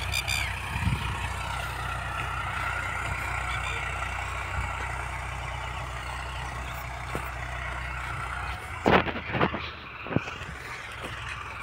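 Farmtrac 60 55 hp tractor engine running steadily at a distance while pulling an 18-disc harrow. A few short thumps come about nine seconds in.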